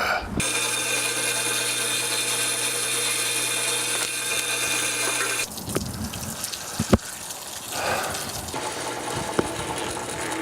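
Craftsman 1-horsepower drill press running steadily for about five seconds, then cutting off abruptly; a few clicks and a sharp knock follow.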